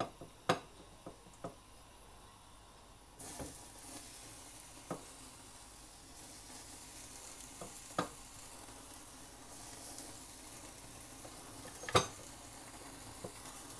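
A few sharp clicks, then, about three seconds in, steady sizzling of marinated, pressure-cooked chicken legs on a wire grill rack over an open flame, broken by an occasional click.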